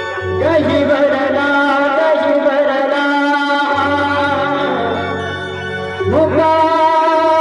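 Indian devotional wedding music played live: a melody on synthesizer and voice, sliding up into long held notes about half a second in and again near six seconds, over tabla and electronic pad beats.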